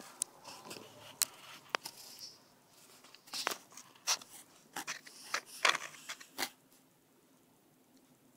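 Faint handling noise from a camera being moved: scattered small clicks and light rustles, busiest in the middle, stopping about six and a half seconds in.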